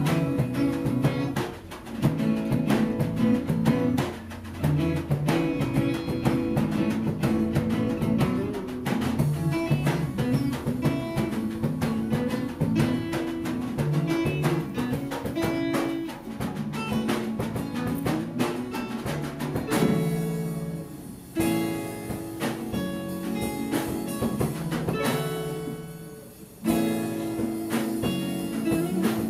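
Small live acoustic band playing: several strummed and picked acoustic guitars over bass and light percussion with cymbal. The playing is busy at first, thins to held notes about two-thirds of the way through, and comes back in near the end.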